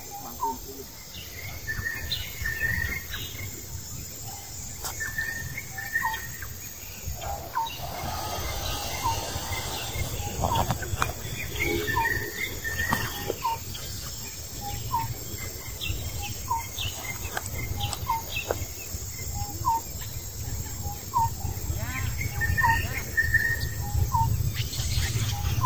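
Birds calling: a short chirp repeated about once a second, with higher twittering chirps now and then, over a steady low rumble.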